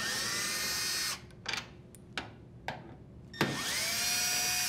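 Cordless drill driver with a Phillips bit backing out two screws: the motor runs twice for about a second each, its whine rising as it spins up and then holding steady. A few light clicks fall in the gap between the runs.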